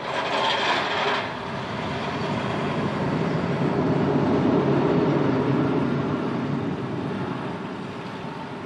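Steel roller coaster train (The Big One) running along its track overhead: a brief hiss at the start, then a broad rumble that swells for several seconds and slowly fades as the train passes.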